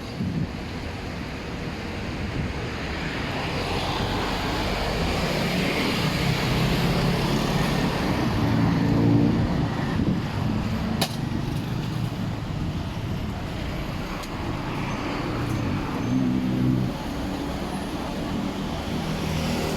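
Street traffic: motor vehicle engines passing, one loudest about nine seconds in and another around sixteen seconds in, over a steady hum of road noise. There is a short sharp click about eleven seconds in.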